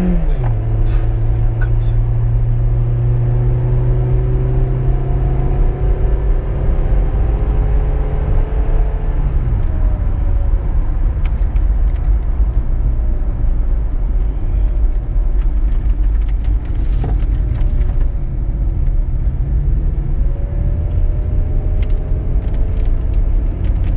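Car driving on a road: a steady low rumble of road and engine noise, with the engine's note holding steady, falling away about nine seconds in, and briefly rising again near the end.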